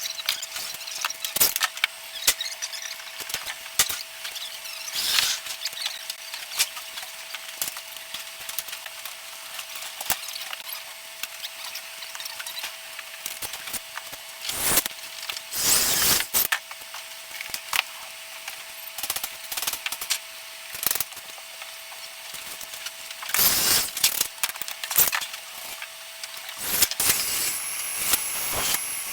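Hand tools working copper water pipe and fittings: scattered clicks and knocks with a few longer scraping strokes, over a faint steady whine.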